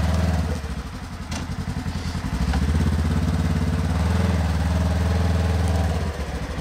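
Polaris General side-by-side's twin-cylinder engine running as the machine drives slowly over the forest floor. The engine note drops about half a second in, picks up again after about two and a half seconds and holds steady, then eases off near the end.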